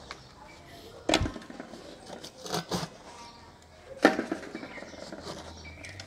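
Dried mud seal being broken and pulled away by gloved hands from around an aluminium pan lid on a drum tandoor: a handful of sharp knocks and clatters, the loudest about a second in and another at about four seconds, with crumbling and scraping between.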